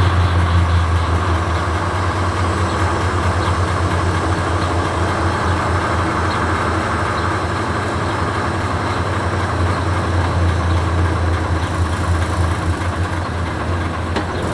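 Diesel engine of an old Iveco Magirus fire truck idling, a steady, deep, even running.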